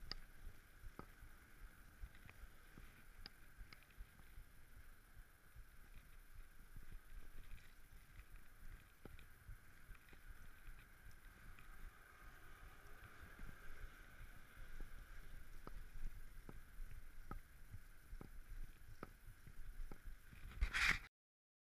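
Mountain bike rolling over rough asphalt: a steady low rumble of tyres and wind with scattered small knocks and rattles from bumps in the path. It cuts off suddenly near the end, just after a louder knock.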